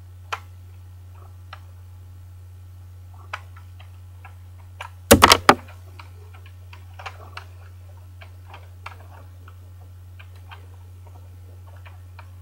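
Hard plastic Lego pieces clicking and clacking as hands turn and handle a Lego puzzle box. There are scattered light clicks, and a quick loud clatter of about four clacks a little after five seconds in. A steady low hum runs underneath.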